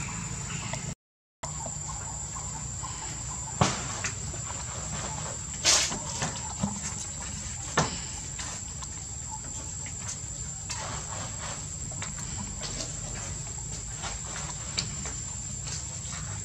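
A handful of sharp knocks and taps from a monkey moving on a wooden roof beam, the loudest about six seconds in. Underneath is a steady high-pitched whine and a low hum. The sound cuts out briefly about a second in.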